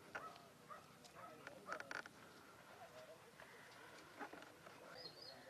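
Faint open-air ambience: distant voices and a few bird chirps, with a small cluster of clicks about two seconds in and a high chirp near the end.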